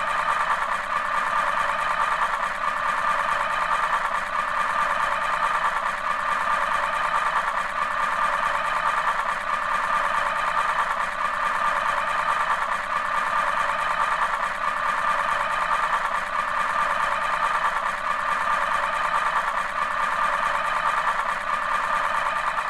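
Alarm buzzer sounding without a break: a harsh, rapid, rattling buzz held at a steady level.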